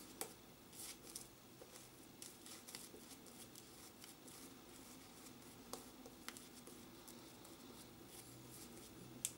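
Faint scratchy swishing of a Semogue 620 boar-bristle shaving brush working soap lather over stubbled skin, with scattered small clicks and one sharper click near the end.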